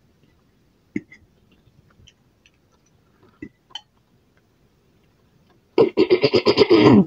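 A person's loud burp, about a second long, near the end, made into a fist held at the mouth, with its pitch sinking as it ends. A few faint clicks come before it.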